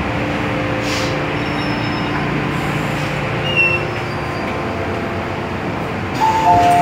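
MTR M-Train metro car standing at a station with a steady hum of its ventilation and onboard equipment. Near the end a two-tone door chime starts, alternating a higher and a lower note.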